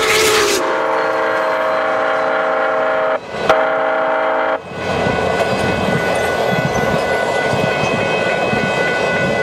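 Union Pacific 844 steam locomotive's whistle blowing a long, loud chord, breaking off briefly about three seconds in and stopping about four and a half seconds in. After it, the steady rumble and clatter of passenger cars rolling past at speed.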